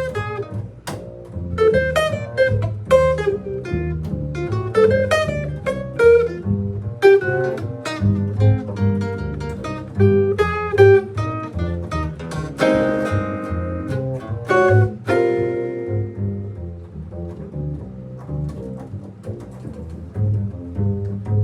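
Band rehearsal: a guitar plays picked single-note lines and then strummed chords over a plucked bass line. The guitar stops about three-quarters of the way through, leaving the bass playing on its own.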